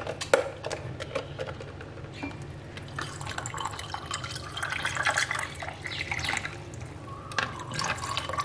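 Chilled water poured from a plastic bottle into glasses over ice cubes and tamarind syrup, splashing and filling. There are a few sharp clicks just after the start.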